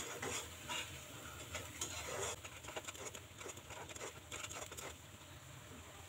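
A spatula stirring and scraping a thick onion-and-spice masala around a nonstick kadai while it fries, in faint irregular scrapes; the stirring stops about five seconds in, leaving a faint sizzle.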